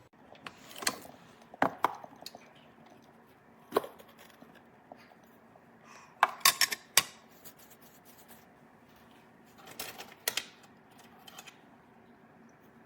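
Short clicks and knocks of hard objects being handled and set down, coming at irregular intervals, with a quick run of clicks about halfway through. No motor is running.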